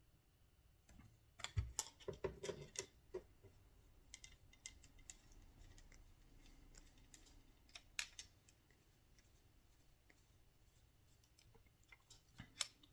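Faint scattered clicks and light rattles of small hardware being handled: a hex driver and small screws being started into the frame of an RC helicopter. The clicks cluster about two seconds in, with a single sharper click about eight seconds in and a couple more near the end.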